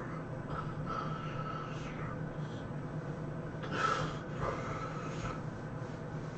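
A sleeping person snoring: two long, rasping breaths, the second, about four seconds in, the louder, over a steady low hum.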